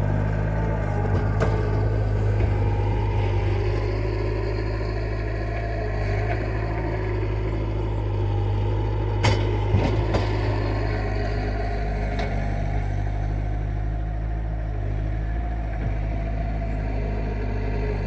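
Bobcat 751 skid steer's diesel engine running steadily, with a couple of sharp knocks about nine and ten seconds in.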